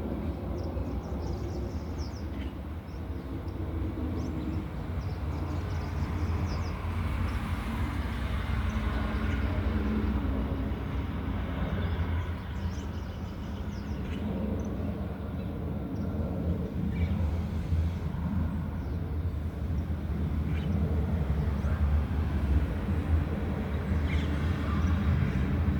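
Boeing 767 freighter's jet engines, a steady low rumble that slowly grows louder.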